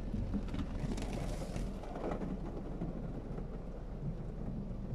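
Automatic car wash spraying water onto a car, heard from inside the cabin: a steady rain-like rush of water on the glass and body with a low rumble, the hiss swelling briefly about a second in.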